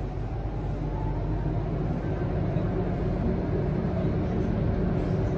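Metro train running through a tunnel, heard from inside the carriage: a steady low rumble of wheels and running gear that slowly grows louder.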